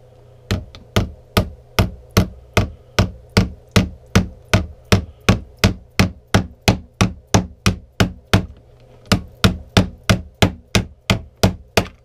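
An aluminum water bottle used as a hammer, striking a nail head on a wooden board again and again: about two and a half sharp knocks a second, with one short pause about three-quarters of the way through.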